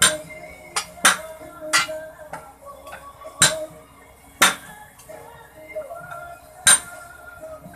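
Steel tyre irons and a hammer striking a truck's lock-ring type steel wheel rim while a tyre is being worked off it: sharp metallic clanks, about seven, irregularly spaced.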